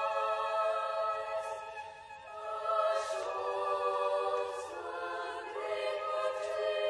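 Boys' choir singing sustained notes in high treble voices, the chord shifting several times, with brief hissed consonants between words.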